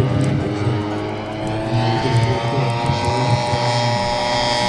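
ZDZ 80cc two-stroke gas engine of a large scale Piper PA-18 Super Cub model airplane running in flight, its propeller drone steady and its pitch slowly rising over the few seconds.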